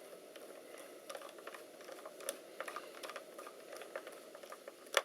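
Small scattered clicks and taps from hands working on a laptop, with the sharpest click near the end, over a faint steady hiss.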